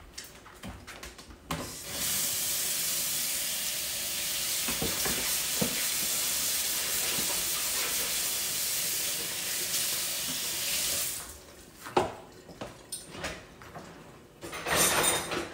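Kitchen tap running into a sink as something is washed off under it, turned on about two seconds in and shut off about nine seconds later. A few knocks and clatters come before and after.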